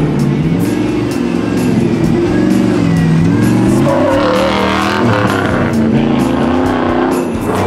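Chevy 2500HD pickup's 6.0 LS V8 revving and accelerating, its pitch rising and falling several times as the truck turns and pulls away. Background music with a steady beat plays underneath.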